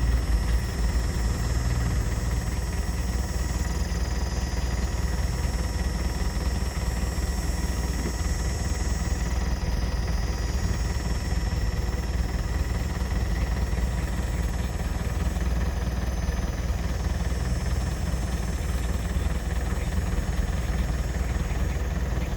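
Excavator's diesel engine running steadily under load, a continuous low rumble with thin high tones above it that shift in pitch a few times.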